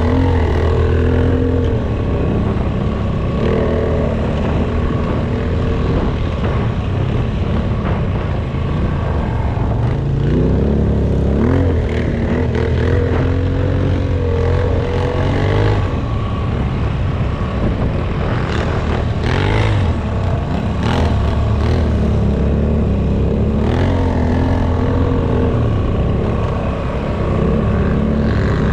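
ATV engine running under load, its revs rising and falling; the pitch climbs about ten seconds in and holds for several seconds.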